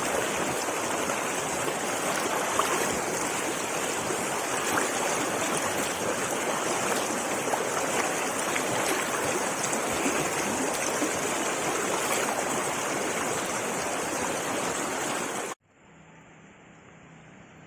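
Stream water running steadily, an even rushing noise that cuts off suddenly about fifteen seconds in, leaving only a faint, much quieter background.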